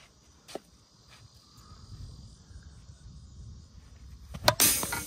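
Wind rumbling on the microphone under faint, steady cricket chirring, with a sharp click about half a second in. Near the end a plastic wiffle ball bat cracks against the ball, fouling it off, followed by a short burst of rushing noise.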